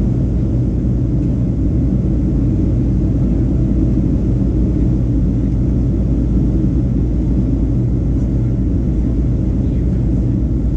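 Cabin noise of a Boeing 737 in flight: a steady low rumble of the jet engines and the air rushing past the fuselage, heard from a window seat.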